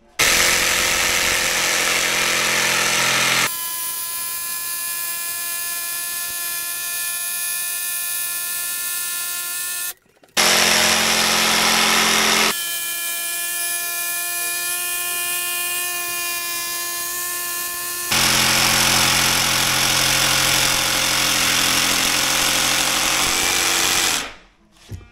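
Makita 18 V LXT cordless jigsaw cutting a curve through 18 mm MDF sheet, its motor running in loud, rougher stretches and steadier whining ones. It stops briefly about ten seconds in, starts again, and stops shortly before the end.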